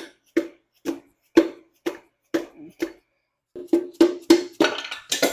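Hammer blows driving a piston and connecting rod out of the bore of a worn Ford 460 V8 block, about two strikes a second, quickening after a few seconds into rapid blows. It ends in a metallic clatter as the piston comes free.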